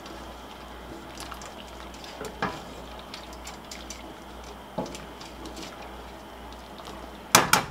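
Pot of spaghetti at a boil, a steady bubbling hiss, as a utensil works the pasta down into the water. A couple of light knocks about 2.5 and 5 seconds in, and a louder clatter near the end.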